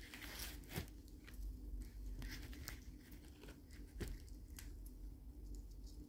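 Faint crinkling and scattered small clicks of fine enamelled copper magnet wire being handled and pressed into the slots of a ceiling-fan stator.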